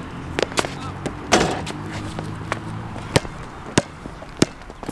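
A basketball hitting an outdoor hard court in sharp single bounces, with a louder hit that rings briefly about a second and a half in, as the shot strikes the hoop. Near the end it is dribbled, a bounce about every 0.6 seconds.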